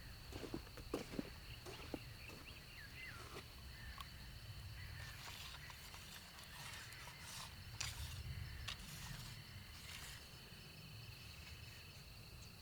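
Outdoor ambience: a steady high insect trill over a low rumble, with scattered light clicks and knocks, several of them in the first second or so.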